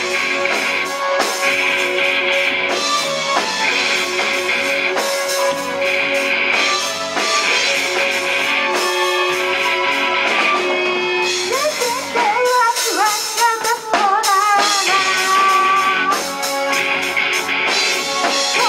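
Live rock band playing: electric guitars and drum kit with lead vocals. A wavering melodic line comes in about twelve seconds in.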